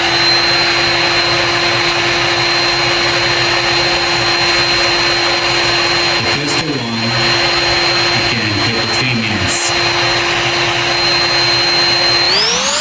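Electric heat gun running steadily, its fan motor whining over a rush of hot air as it heats glued screw bolts to soften the thread glue. Near the end a whine rises sharply in pitch.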